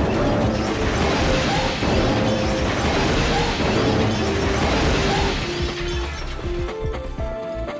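Background music with a simple melody of held notes, overlaid by a loud, crashing, hiss-like wash that thins out near the end.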